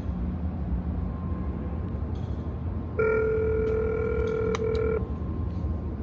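Ringback tone from a stainless-steel intercom call box: one steady two-second ring starting about three seconds in, the call still waiting to be answered. A low background rumble runs under it.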